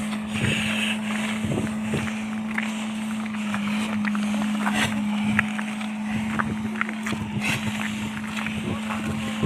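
Small car's engine running with a steady drone while driving over a rough unpaved track, with scattered knocks and clicks from the bumpy road.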